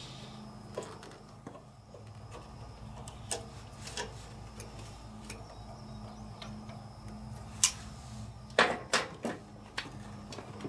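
Scattered light clicks and taps of hands working on a riding mower engine's newly fitted carburetor and its fuel line and linkage, with a quick run of sharper clicks near the end, over a steady low hum.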